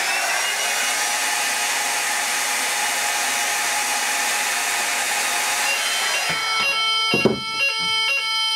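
A hot-air blower runs with a steady hiss and a fan whine that rises as it spins up, heating a rate-of-rise heat detector. About six seconds in, the blower cuts off and a Banshee multi-tone fire alarm sounder starts its alternating two-tone French fire sound: the heat detector has tripped the alarm.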